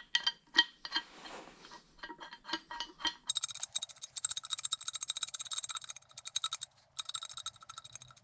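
Steel parts of a 24-inch RIDGID pipe wrench clinking as it is put back together. Separate ringing metal clinks come first. From about three seconds in there is a fast, dense run of ringing metallic clicks, which breaks off briefly near seven seconds.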